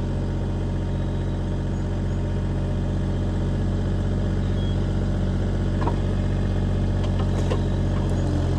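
Bobcat E35 mini excavator's diesel engine running steadily at an even pitch.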